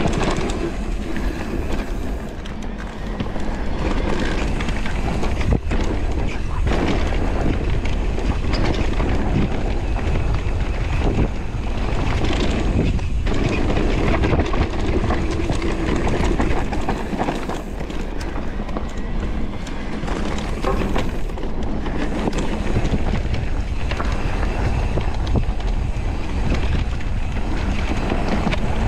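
Radon Deft electric mountain bike riding fast down a leaf-covered dirt trail: a steady rush of tyres on dirt and leaves with wind on the microphone, and a few sharp knocks as the bike hits bumps.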